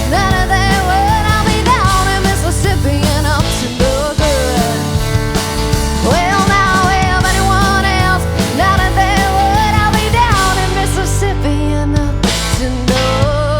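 Rock band playing an instrumental stretch: a lead line that bends and slides up in pitch over steady bass and drums.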